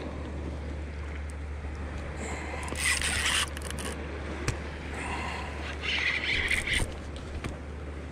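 Handling noise: gloved hands and jacket sleeves scraping and rustling right against the camera while a spinning reel is cranked, in two louder bursts about three and six seconds in, over a steady low hum.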